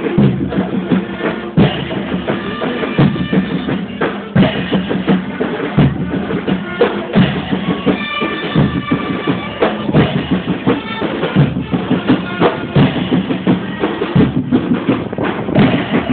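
Music with a drum kit (bass drum and snare) keeping a steady beat under a melody.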